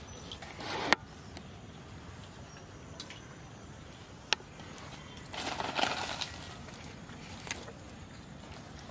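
Quiet pond-side ambience broken by a few sharp clicks, the loudest about a second in, and a brief rustle about five to six seconds in.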